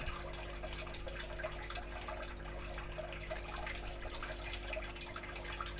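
Light water sounds, small scattered drips and trickles, over a steady low hum.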